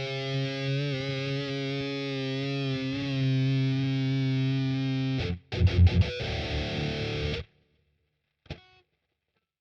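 Heavily distorted electric guitar, likely through a Boss Katana amp: a held power chord rings for about five seconds, then a few loud chugged hits and a second chord that is cut off sharply about seven and a half seconds in. A brief muted string scrape follows near the end, then silence.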